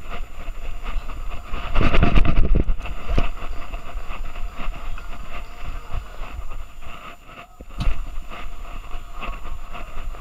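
Rubbing, scraping and knocking of a dog-harness-mounted camera as a Boston Terrier moves about, over a low rumble, loudest about two seconds in.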